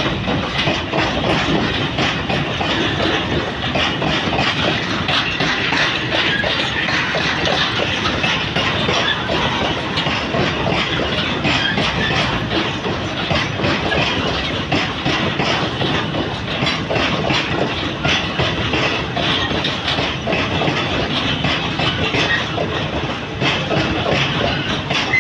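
Train wagons rolling past close by: a steady steel-wheel rumble with frequent sharp clacks as the wheels cross rail joints.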